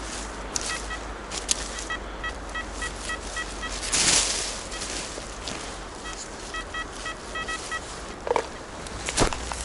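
Metal detector giving runs of short, rapid beeps at one pitch, two bursts of them. A brief loud rush of rustling noise comes between them, about four seconds in.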